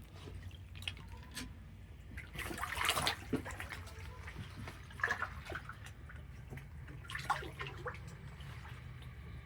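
Water sloshing and splashing in three short bursts, the longest about two to three seconds in, the others near five and seven seconds, over a steady low rumble.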